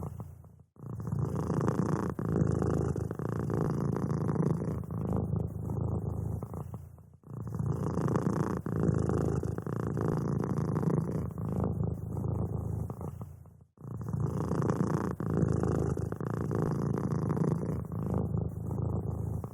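Domestic cat purring steadily in a close, low rumble that breaks off for a moment about every six and a half seconds.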